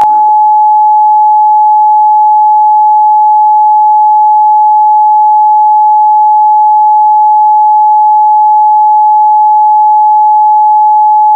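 A loud, steady electronic tone: one unbroken pitch held without change, with a brief faint click right at the start.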